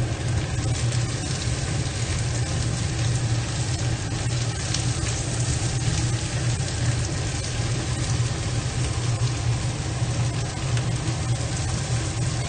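Pork belly and papaya pieces sizzling in a steel wok while a spatula stirs and scrapes them, over a steady low hum that is the loudest part.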